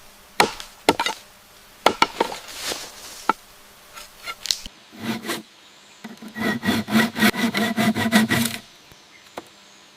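Scattered knocks on wood, then a fast, even run of sawing strokes on bamboo, about six a second, with a ringing tone, stopping just before the end.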